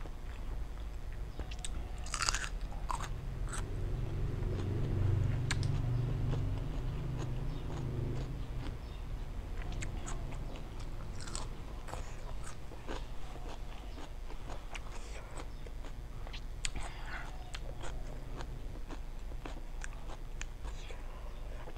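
Close-up mouth sounds of a person eating shrimp in a lime and chili dressing: wet chewing and crunching with scattered sharp clicks. A low hum sounds from about four to eight seconds in.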